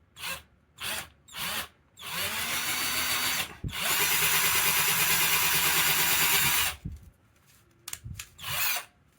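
FADAKWALT 12V cordless drill motor: three quick trigger blips, then it spins up, rising in pitch, and runs for about a second and a half, stops briefly, and runs steadily for about three seconds before two more short blips near the end.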